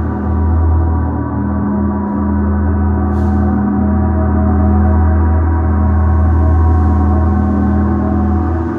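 A gong ringing with a deep, sustained hum and a dense cluster of steady overtones, swelling gently in loudness through the middle.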